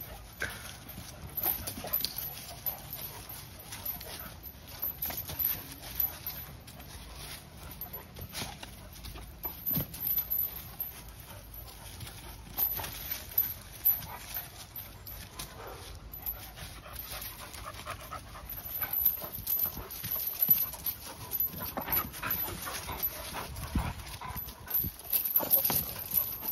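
American Bully dogs panting and scuffling through dry fallen leaves as they jump and tug at a spring-pole rope, with irregular rustles and crackles.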